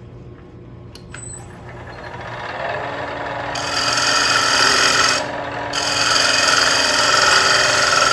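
A bowl gouge cutting the rim of a wooden bowl spinning on a lathe: a steady hissing, scraping cut that builds up over the first few seconds, breaks off briefly about five seconds in, then carries on. The edge of the bowl is being recut because it came out uneven.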